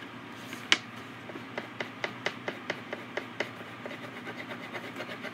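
A crayon tapped on paper on a tabletop: one sharp knock about a second in, then a run of quick light taps, about four or five a second.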